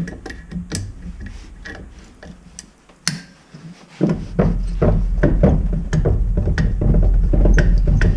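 Metal clicks and knocks from working stuck, rusty pads and slide pins out of an old cast brake caliper, with one sharp click about three seconds in. About four seconds in, a steady low hum with fast, dense ticking starts and keeps going.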